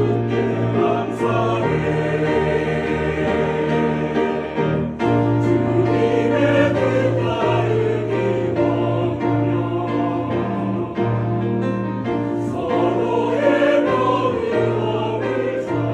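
A mixed church choir, men's and women's voices together, singing a Korean hymn, with a brief break between phrases about five seconds in.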